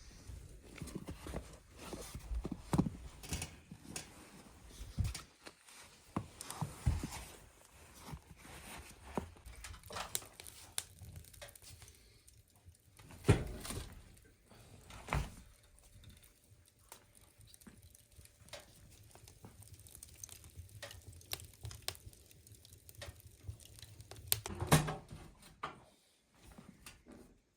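Someone tending a wood stove indoors: scattered knocks, clunks and rustling as firewood is handled and the stove is fed, with a few louder thuds.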